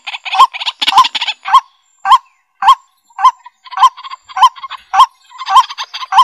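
A bird calling over and over, about two calls a second, each a short rising-and-falling note with a quick rattle between calls; the calls pause briefly about two seconds in.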